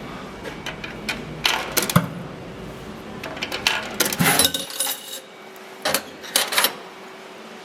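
Coins clinking and dropping in several short metallic clatters, spread over a few seconds, while paying for a £2 souvenir medal.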